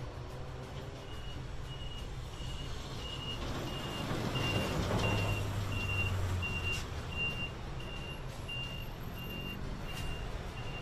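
Low rumble of Mirage 2000 fighter jets on the taxiway, swelling for a couple of seconds a little before the middle. Over it a high electronic beep repeats about twice a second, starting about a second in.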